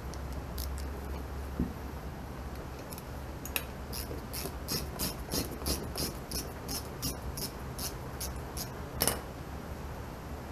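Small metallic clicks, about three a second for several seconds, as a hex key backs out the set screw and the canister of the hydraulic return filter is loosened, with one sharper clink near the end. A steady low hum sits underneath.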